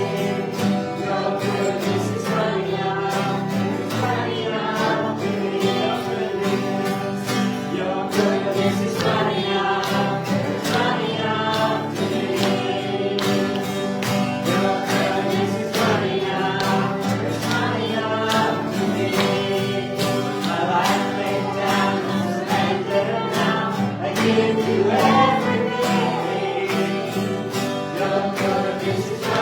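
Worship band and congregation singing a song together, with guitar and a steady beat.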